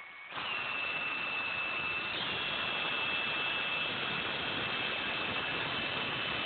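Electric drill boring into a steel plate: a steady motor whine over a grinding rasp that starts just after the beginning, the whine stepping up in pitch about two seconds in.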